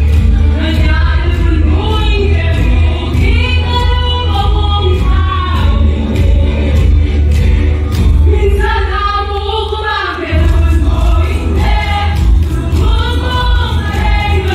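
A mixed choir singing a song through microphones over amplified accompaniment with a steady beat; the bass drops out for a moment just past the middle.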